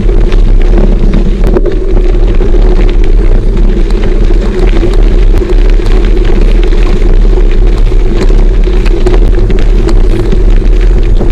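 Off-road motorcycle running steadily along a gravel track, with wind buffeting the camera microphone and small ticks from gravel under the tyres.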